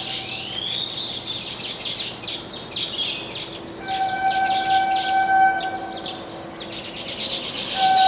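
Baya weavers chattering in quick, high chirps, with a rising wheezy note about a second in and the chirping thickest near the end. A steady, pitched drone of unknown source comes and goes under the calls.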